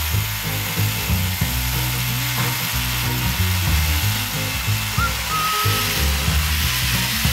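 Electric hammer drill boring into a granite wall, a steady grinding whir, with a background music track carrying a changing bass line over it.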